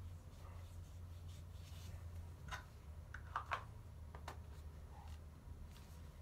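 Faint rubbing and handling noises with a few light clicks partway through, over a low steady hum.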